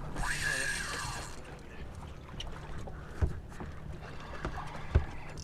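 A boat's motor running steadily, with a brief hissing whistle that rises and falls in the first second and a half, and two sharp knocks about three and five seconds in.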